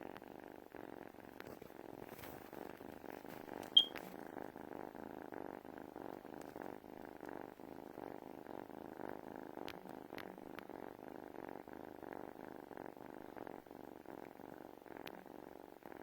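Domestic cat purring steadily, a continuous fast-pulsing purr. About four seconds in, a single short, sharp high-pitched click stands out.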